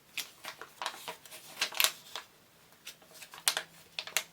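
Pages of a paper Lego instruction booklet being turned and handled: a run of short rustles and light clicks, several to a second, the loudest a little under two seconds in and again about three and a half seconds in.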